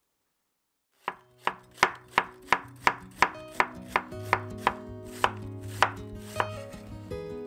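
Knife chopping food on a cutting board: a steady run of sharp chops, about three a second, starting about a second in and easing off near the end.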